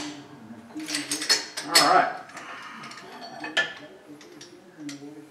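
Steel tools clinking and knocking as a press extension bar and bearing splitter are handled on the bed of a shop press: a few scattered sharp clinks, the loudest about two seconds in and another about a second and a half later.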